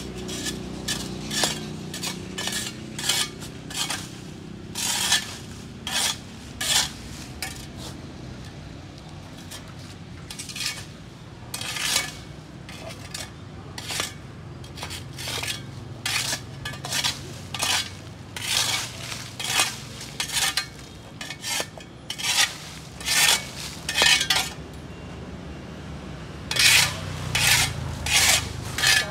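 Metal hand tools scraping and scratching across sidewalk paving in short repeated strokes, about one or two a second, as caked grime and weeds are cleared off the surface.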